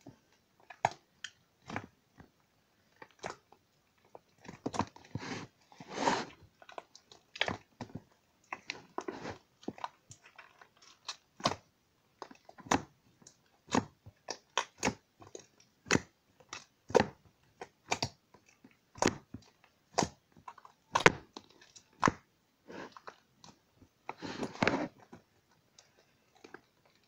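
A large mass of slime being kneaded and pressed by hand in a plastic tub. It makes irregular sticky pops and clicks, about one or two a second, with a couple of longer squelches.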